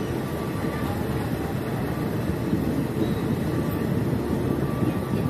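Passenger train running slowly, heard from inside a carriage: a steady low rumble of the wheels and running gear on the track.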